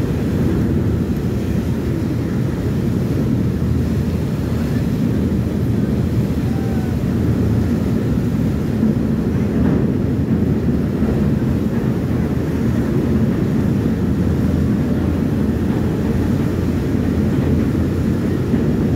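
Steady low rumble of a car ferry under way, its engines driving the propellers that churn up the wake.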